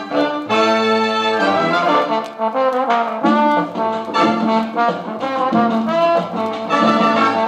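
Jazz-band music led by brass, trombones and trumpets playing sustained, shifting notes, heard from a vinyl record playing on a turntable.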